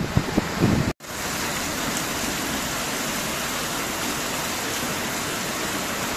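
Wind buffeting the microphone for about the first second, then, after a sudden cut, the steady even hiss of a heavy downpour pouring onto flooded ground.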